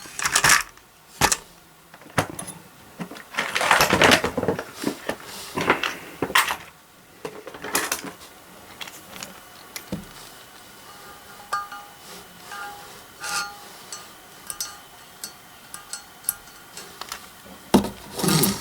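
Small metal engine parts clicking, clinking and scraping: valve spring seats being picked out of a motorcycle cylinder head and handled. There is a longer rattling scrape about four seconds in, and a few short ringing clinks later on.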